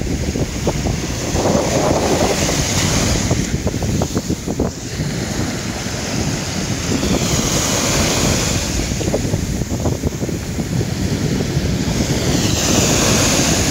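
Small waves of the Baltic Sea washing up onto a sandy beach and drawing back, with wind buffeting the microphone. The hiss of the wash swells about halfway through and again near the end.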